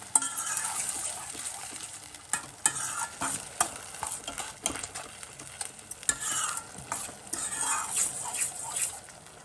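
A metal spoon stirring sugared vermicelli in a stainless steel kadai, clinking and scraping against the pan many times over the sizzle of the cooking mixture.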